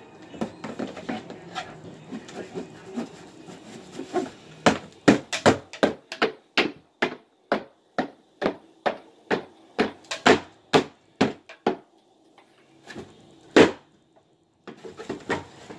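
Cardboard shoebox being cut and broken open: soft handling rustle at first, then a run of sharp cardboard cracks, about two a second, stopping a little past the middle, with one last loud crack shortly after.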